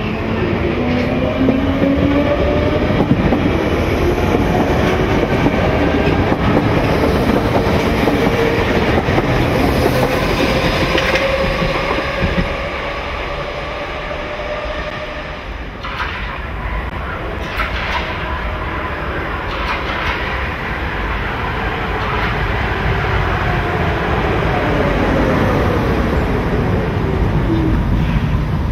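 Hamburg U-Bahn DT2 electric trains running. The motor whine rises in pitch as one pulls away, wheels click over rail joints and points, and the whine falls again as a train slows.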